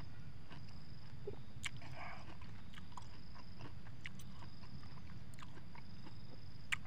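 Close-miked chewing of juicy pineapple: scattered wet mouth clicks and smacks over a steady low hum, with one sharper click near the end.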